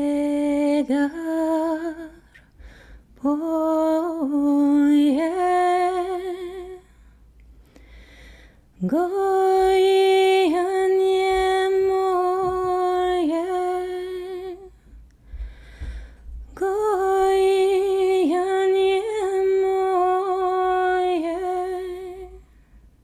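A woman singing solo and unaccompanied, a slow folk song of long held notes with small dips and turns, in four phrases separated by short pauses for breath.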